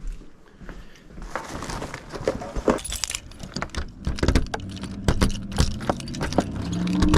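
Keys jangling and rattling with a run of clicks and knocks, and from about four seconds in a car engine running steadily underneath, getting louder near the end.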